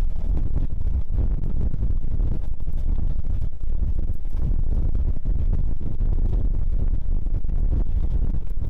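Steam-hauled train running along the line: a steady, loud low rumble with wind buffeting the microphone held out of the carriage window.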